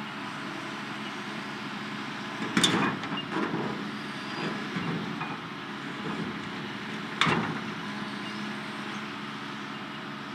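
Hitachi tracked excavator's diesel engine running steadily, with two sharp metallic bangs, about two and a half and about seven seconds in, as the bucket strikes the steel shipping container.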